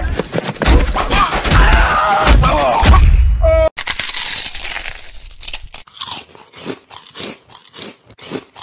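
For the first few seconds, a voice shouting over music and hits from an animated fight scene, cut off abruptly. Then a crunchy snack being bitten and chewed, crunching about three times a second and fading near the end.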